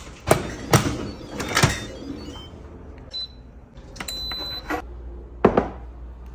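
Kitchen clatter: a few sharp knocks and clunks of cookware being handled, and a short high electronic beep from a kitchen appliance about four seconds in.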